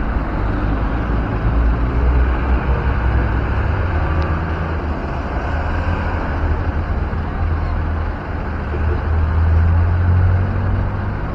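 Low, steady rumble of a bus engine and road traffic, swelling a little near the end; no telolet horn melody sounds.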